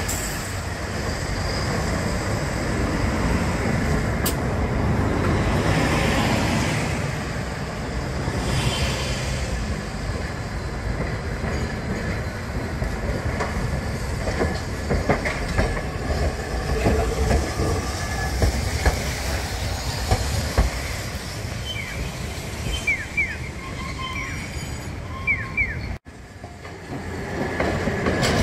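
Kagoshima city streetcar running over the points and curve of a street junction, its wheels clicking over the rail joints, with a few short high wheel squeals on the curve about two-thirds of the way through, over steady road traffic.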